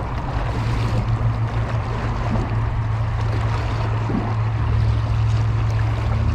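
A steady, low motor hum, typical of a motorboat engine running on the water, over a constant hiss of moving water and wind.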